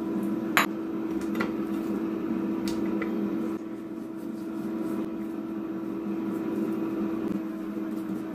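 Cosori air fryer preheating, its fan running with a steady hum. A few light clicks of the basting brush against the bowl come in the first three seconds, the sharpest about half a second in.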